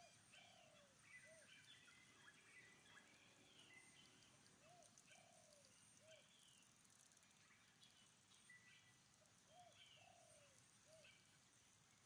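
Faint outdoor birdsong: a low three-note call repeated three times, about every five seconds, with scattered higher chirps from smaller birds.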